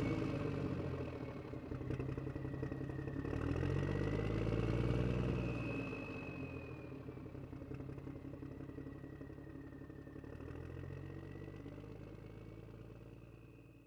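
Heavy IVECO dump truck's diesel engine running. Its note climbs about three seconds in, is loudest around five seconds, then drops back, with a smaller rise near the end. A thin high whine wavers above it throughout.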